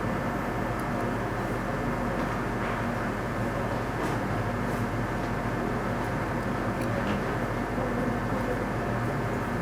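Steady low electrical hum with fan-like noise from bench equipment, unchanging throughout, with a few faint light ticks.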